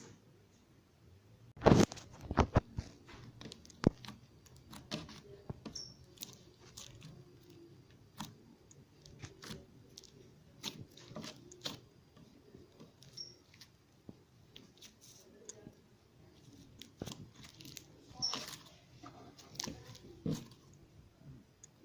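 Slime being squished and worked by hand, giving scattered crackles and pops, with a loud cluster of crackles about two seconds in.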